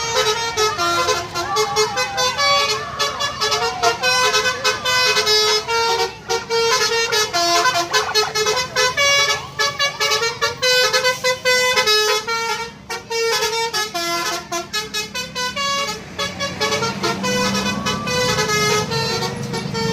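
Bus 'telolet' horn, a multi-trumpet musical air horn, playing a fast tune of short stepped notes over and over. Near the end the notes thin out and a low rumble rises.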